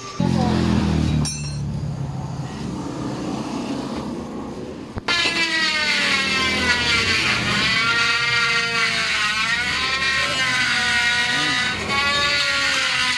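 A low engine-like drone for the first few seconds. About five seconds in, a handheld corded rotary tool switches on with a click and whines, its pitch dipping and recovering again and again as it bites into the scooter's plastic handlebar cover.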